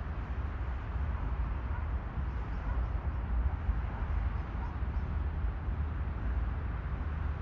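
Steady low outdoor rumble and hiss with no distinct events.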